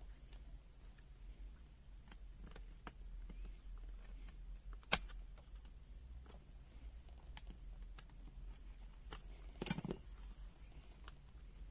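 Scattered faint clicks and snaps of a ZOYI ZT-Y2 multimeter's plastic case being pried open, with two louder snaps, one about five seconds in and one toward the end.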